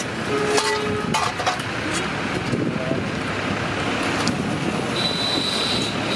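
Steady street traffic noise, with a few sharp metallic clinks of steel serving pots and lids about a second in.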